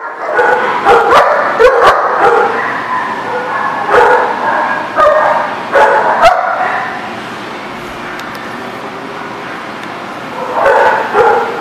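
Dogs wrestling in rough play, barking and yipping in loud bursts through the first half and again near the end, with a few sharp clicks.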